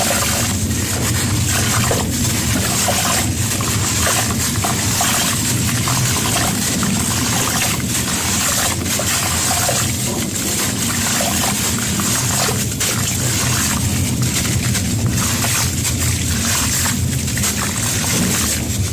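Gritty cement crumbling in water: a steady, dense crackle of many small snaps over a hiss of trickling and sloshing water.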